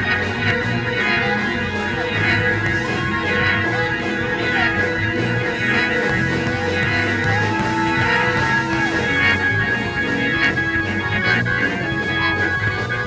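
Live gospel praise music: sustained organ chords over a steady drum beat.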